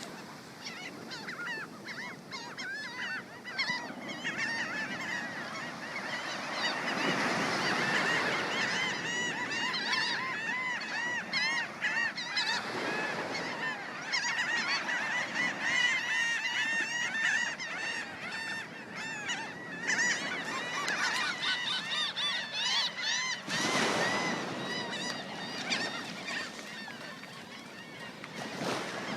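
A large flock of birds calling, with many short calls overlapping continuously and a brief rush of noise near the end.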